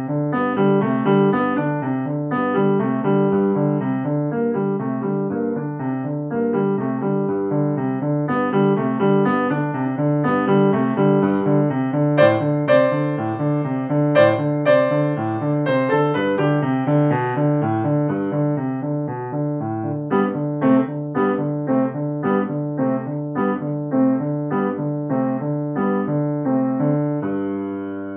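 Upright piano played with both hands, a steady run of notes in the bass under a melody, with a few sharper accented high notes about halfway through.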